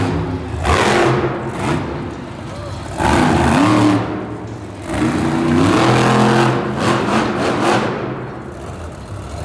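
Megalodon monster truck's supercharged big-block V8 revving hard in three surges, its pitch rising and falling between them.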